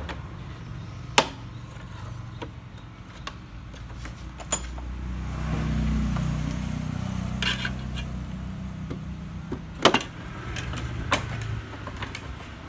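Scattered clicks and knocks of tools and plastic body panels as a Honda Vario 125 scooter is taken apart, the sharpest about a second in and about ten seconds in. Under them runs a low rumble that swells in the middle.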